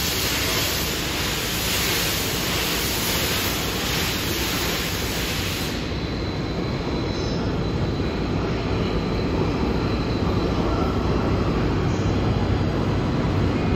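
C58 steam locomotive starting a train: a loud steady hiss of steam venting from the cylinder cocks, which cuts off suddenly about six seconds in. After it, the steady low rumble of the locomotive, tender and carriages rolling past.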